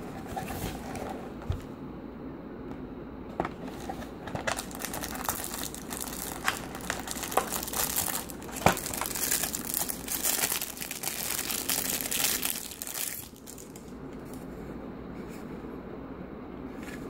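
Clear plastic bag crinkling as hands unwrap a small Wi-Fi adapter, mixed with sharp clicks and taps of handling in a cardboard box. The crinkling stops suddenly about thirteen seconds in, leaving only faint handling.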